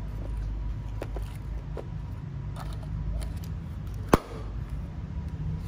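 Hand handling metal tools and plastic wrap: a few light clicks and rustles, then one sharp click about four seconds in, over a steady low background rumble.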